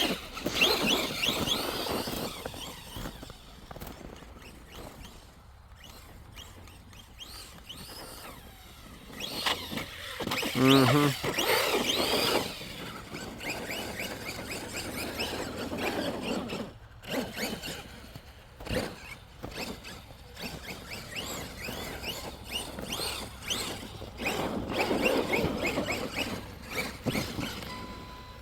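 Electric RC truck driven through snow, its motor whining up and down in pitch over and over as the throttle is worked, with tyre and snow noise under it. The loudest stretch comes about ten seconds in.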